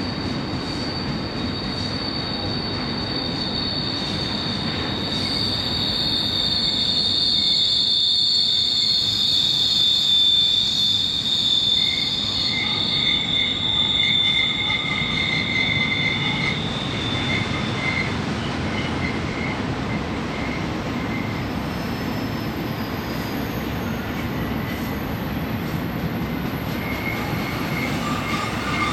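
Empty intermodal well cars rolling past on a curve: a steady rumble of wheels on rail, with shrill wheel squeal that is strongest through the first half and then fades, and a lower squeal returning near the end.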